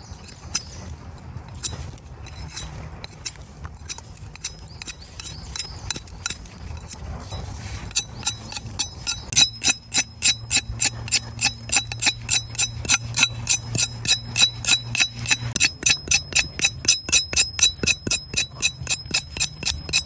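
A knife chopping rapidly on a board, about three strikes a second, each with a short metallic ring. The steady chopping starts about a third of the way in, after a few scattered light knocks.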